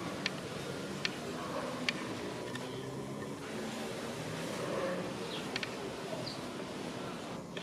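Steady background hum of a zoo enclosure with a faint murmur of distant voices, three sharp ticks in the first two seconds, and a couple of brief high bird chirps later on.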